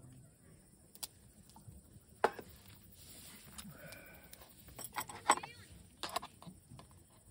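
Sharp clicks and knocks of things being handled on a wooden camp table, the loudest about two seconds in and a cluster around five seconds in, with a faint short high-pitched call in the middle.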